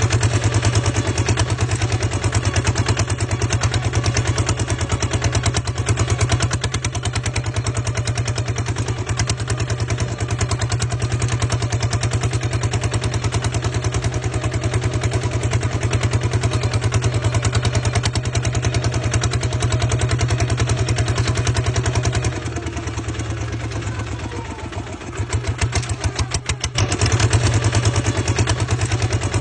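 Two-wheel walking tractor's single-cylinder diesel engine running steadily with a rapid, even chug. It eases off and goes quieter and uneven for a few seconds about two-thirds of the way through, then picks up again.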